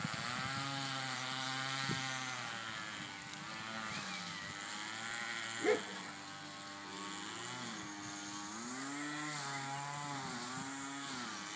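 A small engine running continuously, its pitch rising and falling every second or two, with a short sharp sound about halfway through.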